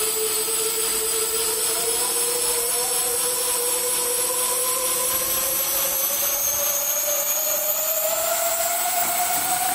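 Electric ducted fans on the blade tips of a model tip-jet helicopter rotor, whining steadily as the rotor spins. The pitch climbs slowly throughout.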